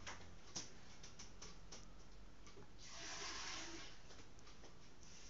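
Faint light clicks of a glass jar being handled in a steel pot, then a short hiss about three seconds in.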